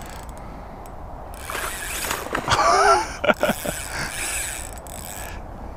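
A small hooked jack pike splashing and thrashing at the surface close to the bank, with the spinning reel being worked against it. The splashing comes in noisy rushes, with a few sharp knocks about three seconds in.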